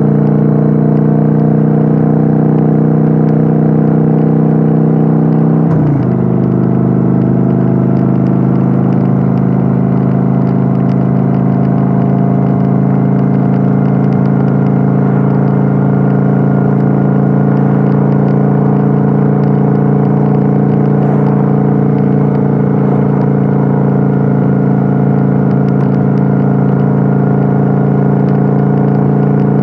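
Kawasaki Vulcan 900's V-twin engine running steadily at cruising speed, heard from on board the motorcycle. The engine note changes briefly about six seconds in, then settles into a steady, slightly different note.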